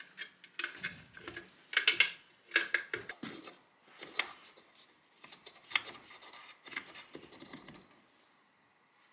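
Hand tool and cast-iron drill press parts scraping, rubbing and clicking irregularly as the drill press head is taken apart by hand, dying away near the end.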